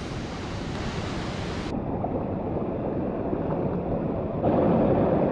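Steady rushing water of a rocky creek running over small rapids. It gets louder about four and a half seconds in.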